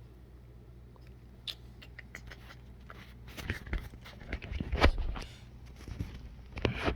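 Small clicks, taps and scrapes of a pick tool being handled and tried against a plastic EV1 fuel injector connector, getting busier about halfway through, over a steady low hum.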